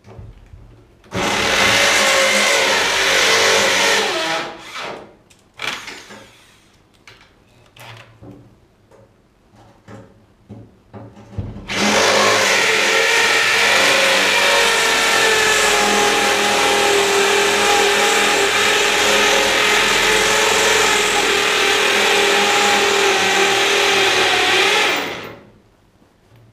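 Shop vacuum running in two long stretches, a short one of about three seconds near the start and a longer one of about thirteen seconds from near the middle, a steady whine with a rush of air that cuts off sharply each time. It is sucking concrete dust out of freshly drilled anchor holes. Light clicks and handling noises fall between the two runs.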